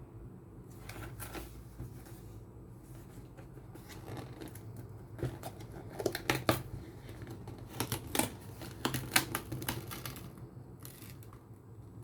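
Chocolate packaging being handled and opened: crinkling wrapper and cardboard with a run of sharp crackles and clicks, busiest in the middle, over a low steady hum.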